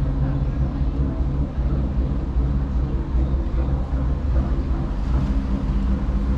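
Dutch barge's diesel engine running steadily under way, a constant low hum with no change in speed.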